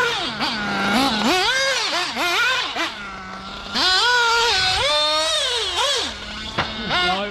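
The REDS two-stroke nitro engine of a Kyosho Inferno MP10 TKI2 1:8 buggy revving hard, with a high whine that rises and falls with the throttle. It drops back to a steady lower note on brief lifts off the throttle: about a second in, around three seconds in, and just after six seconds.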